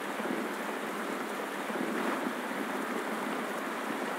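A steady, even rushing noise with no music or speech.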